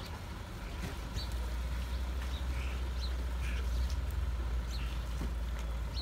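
Short, high bird calls scattered over a steady low rumble.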